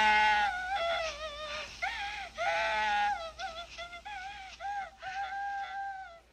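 A small child crying, a string of high, wavering wails that are loudest at the start and fade near the end.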